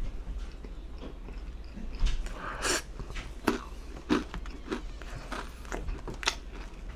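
Close-miked chewing of pizza: wet mouth clicks and crunches, roughly one every half second to a second, over a faint low hum.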